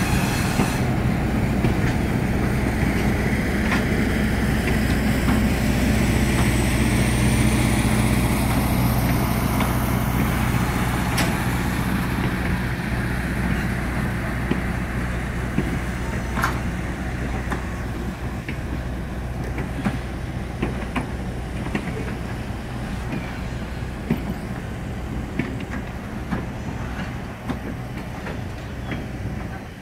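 Illinois Central Gulf GP8 diesel-electric locomotive, with an EMD 567-series two-stroke diesel, rumbling as it pulls a string of passenger coaches past. Its steady low engine note fades away over the first dozen seconds and leaves the coaches' wheels clicking over the rail joints.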